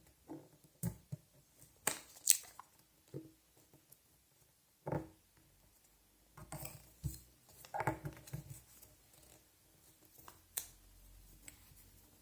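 A sheet of paper being folded and creased by hand: scattered crinkles and short sharp crackles of the paper, the sharpest about two seconds in and a cluster of rustling later on.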